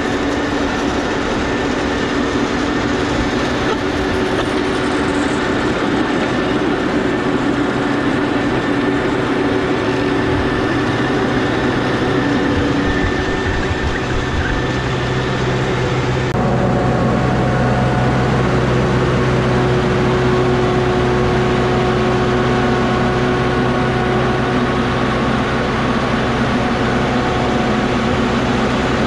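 Steady engine noise with a low hum and several held tones. It shifts to a different, steadier set of tones about 16 seconds in.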